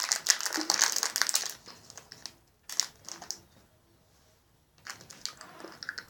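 Crinkling plastic wrapper of a mini packet of M&M's being handled and torn open: a dense run of rapid crackles for the first second and a half, then scattered small clicks and rustles with a quiet gap.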